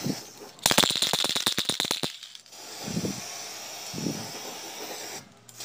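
Aerosol can of black gloss spray paint shaken hard, its mixing ball rattling in a fast run of sharp clicks for about a second and a half, then a steady hiss of paint being sprayed.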